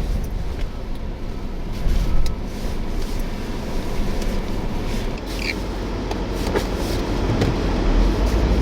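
Strong blizzard wind buffeting the microphone: a steady low rumble with a few scattered clicks.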